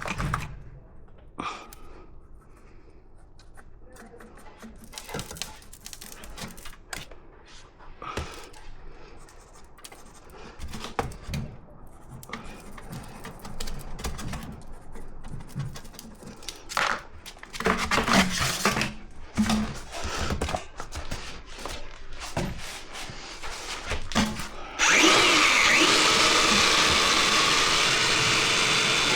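Tools and parts being handled, with scattered knocks and clatter. About 25 s in, a power tool starts and runs steadily and loudly, likely working on the wall for the flue opening.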